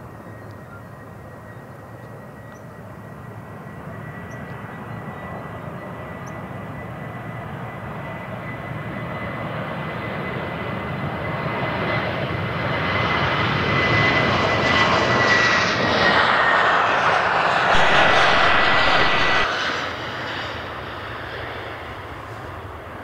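Jet airliner's engines passing close by: a steady high whine over engine noise that grows louder for about fifteen seconds, then falls away sharply near the end.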